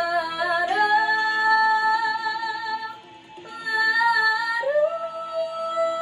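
A teenage girl singing solo, holding long sustained notes that each slide up into pitch. She breaks off briefly about three seconds in, then settles into one long held note for the rest.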